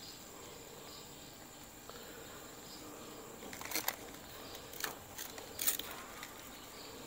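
A small knife cutting through the tough crown of a plantain bunch to free single fruits: a few short, quiet crunching snicks from about halfway through, over a faint steady high-pitched background tone.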